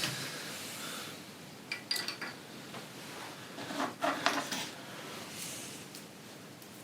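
Light metallic clinks and taps of small hand tools being handled, in two short clusters about two and four seconds in.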